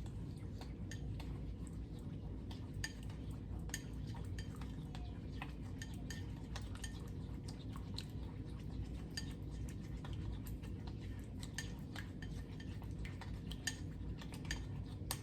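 A utensil stirring mustard and liquid smoke in a mixing bowl, with faint, irregular clicks of the utensil against the bowl several times a second over a low steady hum.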